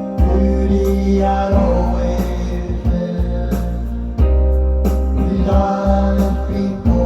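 Music: a song with a singing voice over a strong, steady bass.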